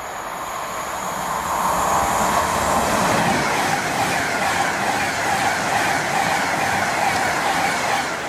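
A Pendolino electric express train passing through at speed: wheel and rush noise that builds over the first two seconds and then holds, with a faint falling whine as it goes by.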